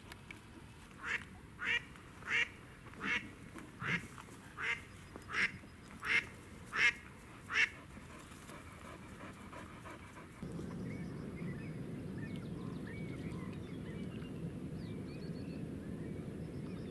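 Live decoy hen duck quacking a run of about ten loud quacks, a little over half a second apart, growing louder toward the end and then stopping. From about ten seconds in a steady low rushing noise takes over, with faint small-bird chirps.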